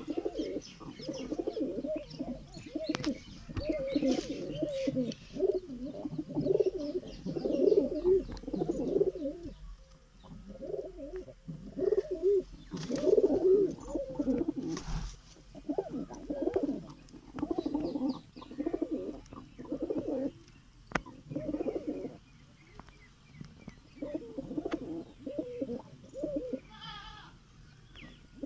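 A flock of domestic pigeons cooing, many birds at once, the low coos overlapping in runs with short lulls. A short run of higher chirps comes near the end.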